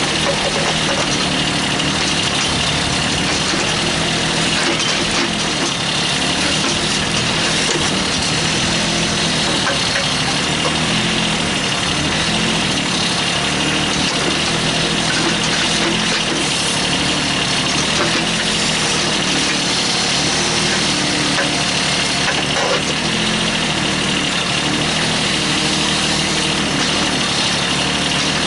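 Kubota B8200 compact tractor's three-cylinder diesel engine running steadily, driving the backhoe hydraulics as the boom and bucket dig.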